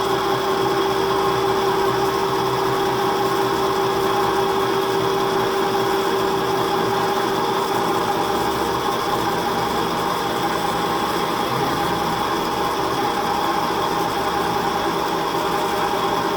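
Pandjiris welding positioner's electric drive motor and gearing running steadily, a continuous machine whine made of several steady tones. The lowest tone fades away about halfway through.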